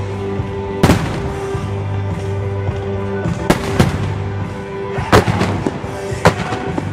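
Aerial firework shells bursting in sharp bangs, about five of them spread across the few seconds, two of them close together midway. Background music with sustained tones plays underneath.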